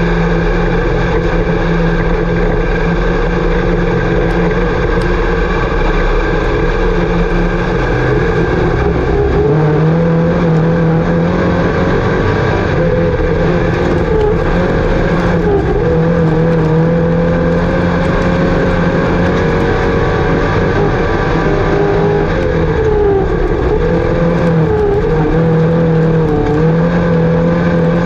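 IMCA Sport Mod dirt-track race car's V8 engine running hard on track, its engine note rising and falling as the throttle is worked.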